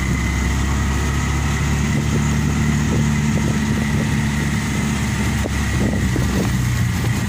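Three-wheeler auto-rickshaw's small engine running steadily as it drives along a dirt track, heard from inside the open cab, with light rattles and knocks from the body over the bumps.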